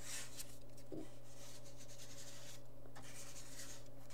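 Paint being rubbed across a paper index card: several dry, scratchy rubbing strokes with short breaks between them.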